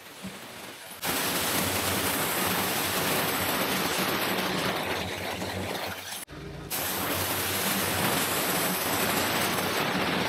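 Pressure washer jet hissing as it blasts moss off a stone wall, with the machine's steady low hum underneath. The spray starts about a second in, drops out for a moment a little after six seconds, then runs on.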